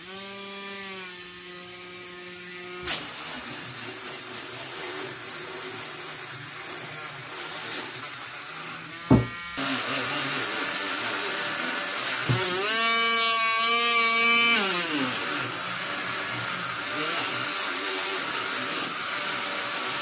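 Dremel Stylo rotary tool switched on, its motor whining up to speed, then its abrasive disc grinding against hard wood in a steady rasp. There is one sharp knock about nine seconds in, and the motor's pitch rises and drops back again for about two seconds a little later.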